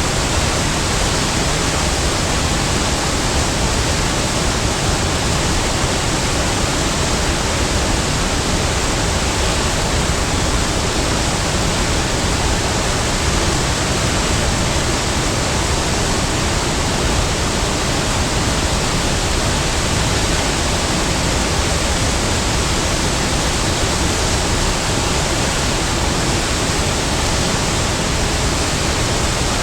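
Big waterfall: a steady, loud rush of falling water, unbroken throughout.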